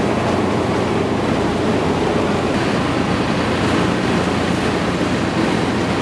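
Wind and sea rushing steadily, with a low steady hum underneath.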